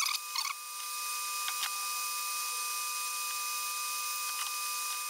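Steady whirring hiss of a workbench fan with a few faint whining tones held under it. In the first two seconds, a few light metallic clicks and scrapes come from a screwdriver working inside the steel amplifier chassis.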